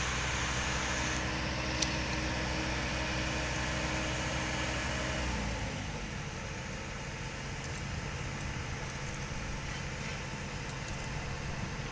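An engine idling steadily with a low hum, which stops about five and a half seconds in, leaving a fainter steady noise. A single short click sounds near two seconds in.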